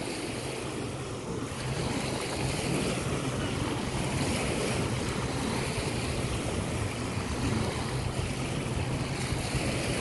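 A jet ski's engine running with a steady low drone as it heads toward the shore, over small waves washing onto a pebble bank. The sound grows a little louder about a second and a half in.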